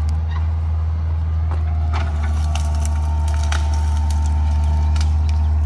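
Skid steer engine running steadily at a low drone, with a thin whine coming in about two seconds in and scattered clicks and knocks over it.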